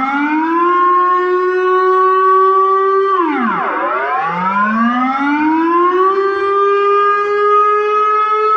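Dutch civil-defence air-raid siren sounding its monthly test signal, a rising and falling wail. Its pitch climbs to a high held tone for about two seconds, drops sharply about three seconds in, then climbs and holds again before dropping once more at the end.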